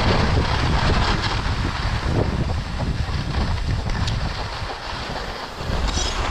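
Wind buffeting the microphone of a moving skier, with skis scraping and hissing over groomed snow.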